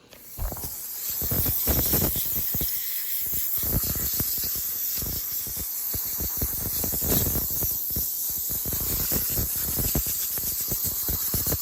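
Pressure washer spraying down an engine: a loud, steady hiss of the water jet that starts suddenly at the beginning, with uneven low rumbling as the spray moves over the surfaces.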